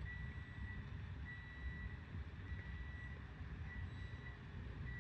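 A high electronic beep repeating roughly once a second, each beep lasting about half a second to a second, over a low rumble.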